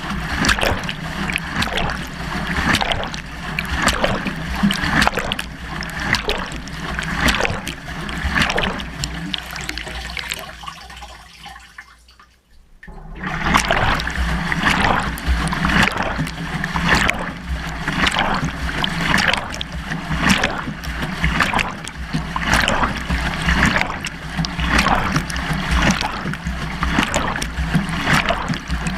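Beko washing machine drum tumbling with water, heard from inside the drum: water sloshing and splashing in a regular rhythm, about one to one and a half splashes a second. The drum stops for about a second just under halfway through, then starts turning again.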